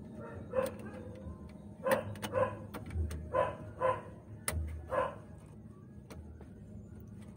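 A dog barking, about six short barks in quick succession, mixed with a few sharp clicks from small metal parts being handled.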